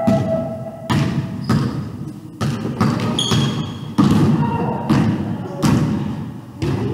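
Basketball dribbled on a hardwood gym floor, bounces about once a second, each echoing through the large hall. A brief high squeak about three seconds in.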